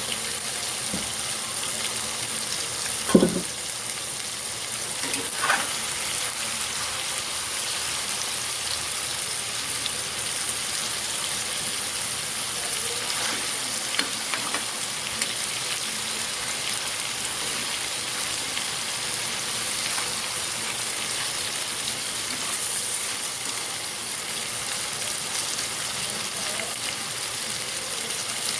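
Chicken pieces frying in hot oil in a pan, a steady sizzle. There is a sharp knock about three seconds in and a smaller one a couple of seconds later.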